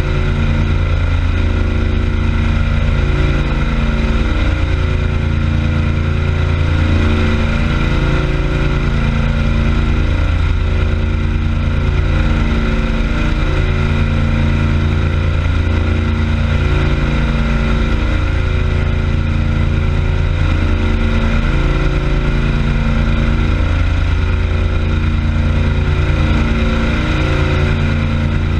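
Motorboat engine running steadily and smoothly under way, with water rushing in the churned wake; its low drone swells and eases every few seconds.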